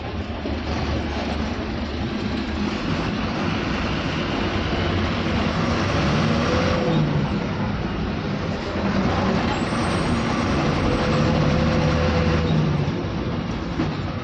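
Goods lorry's diesel engine running with road and cab noise, heard from inside the cab as it rolls slowly in heavy traffic; a steady rumble that swells a little at times.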